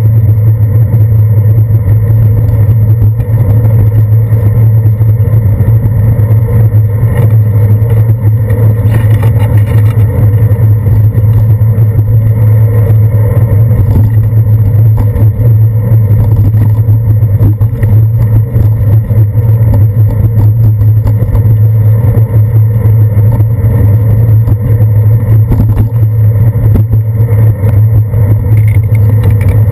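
Loud, steady, muffled rumble of a bicycle rolling over wet pavement, picked up as road vibration by a handlebar-mounted GoPro camera.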